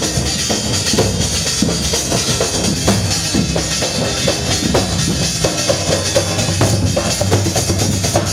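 Dhol drums beating a dense, steady rhythm of rapid strokes, the accompaniment to a Gair stick dance.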